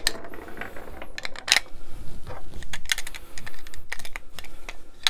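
Irregular hard-plastic clicks and knocks from a Hasbro Neutrona Wand toy being handled and its parts pressed back into place.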